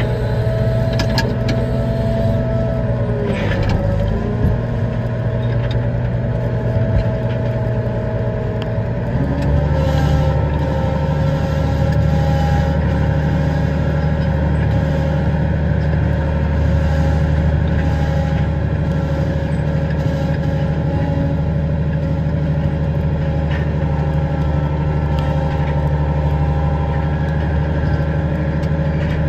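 Tractor engine running while moving, heard close. Its note dips a few seconds in, then about nine seconds in settles into a lower, steady drone that holds.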